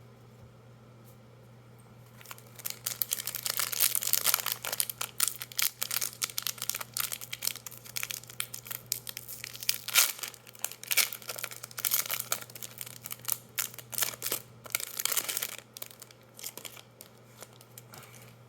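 Foil wrapper of a Magic: The Gathering set booster pack being torn open and crinkled: a dense crackling that starts about two seconds in and dies away near the end.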